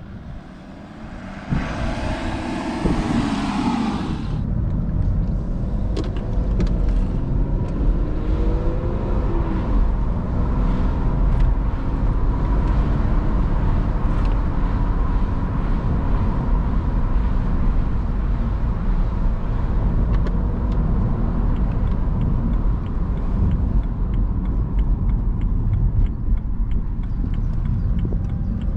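A BMW 330d E93 convertible's 3.0-litre six-cylinder diesel pulling away and accelerating, its note rising and dropping as it shifts gears, heard from inside the open-top cabin under steady wind and road rumble. A loud rushing noise lasts about two seconds near the start.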